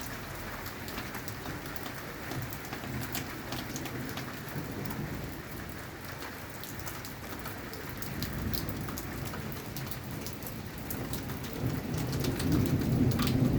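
Steady rain falling, with many sharp drop ticks hitting a nearby surface. Low rolling thunder swells up about twelve seconds in.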